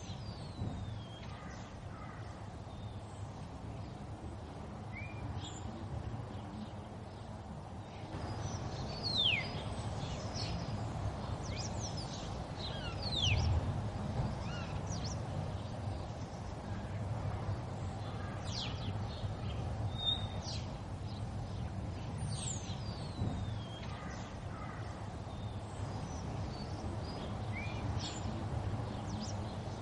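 Birdsong ambience: many birds chirping and giving short falling whistles, scattered throughout, over a steady low rumble.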